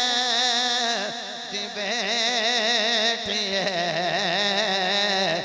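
A man singing a drawn-out devotional verse line through a microphone, his voice wavering in long ornamented notes with no pauses.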